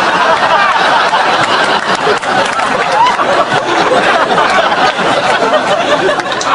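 An audience laughing and chattering, many voices overlapping.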